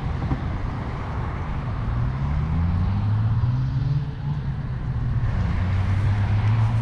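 Road traffic: a vehicle's engine pulls away, its note rising from about two seconds in and then holding steady, over a steady background of traffic noise.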